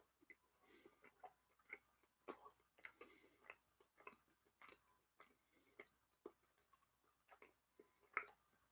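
Faint close-up chewing of cheese, with irregular mouth clicks and smacks about two a second and a louder click near the end.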